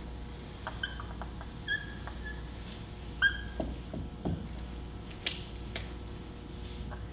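Dry-erase marker squeaking on a whiteboard in short strokes as Arabic letters are written: a few squeaks about a second in, the loudest at about three seconds, two lower sliding squeaks just after, and a sharp tap just after five seconds.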